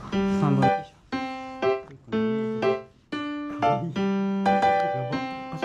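Background music on a piano-like keyboard: a melody of short notes in repeating phrases, with brief breaks between phrases.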